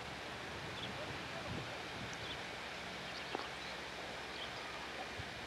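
Outdoor campground ambience through a camcorder microphone: steady hiss with scattered faint high chirps and a single soft click about three seconds in.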